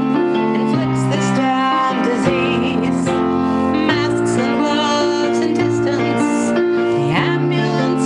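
A woman singing a song to her own piano accompaniment, with held piano chords that change about once a second under a wavering sung line.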